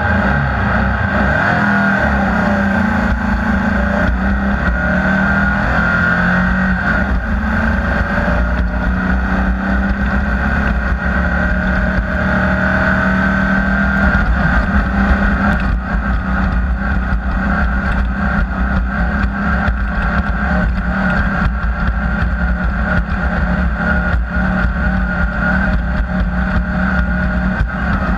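Off-road race vehicle's engine running hard and continuously, its pitch wavering slightly up and down.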